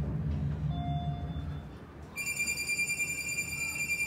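Otis hydraulic elevator car humming low as it travels, the hum dying away about a second and a half in. About two seconds in a steady high electronic beep starts and holds for about three seconds.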